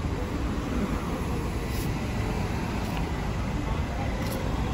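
Steady low rumble of road traffic and outdoor background noise.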